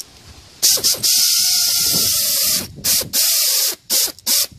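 Pneumatic air ratchet run in bursts to drive a fastener: a long run of about two seconds, then three short bursts, each with a loud hiss of exhaust air.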